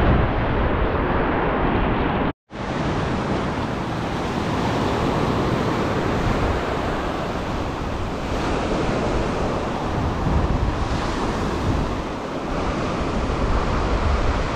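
Surf breaking and washing up the beach in a steady rush, with wind buffeting the microphone. The sound cuts out for an instant about two and a half seconds in.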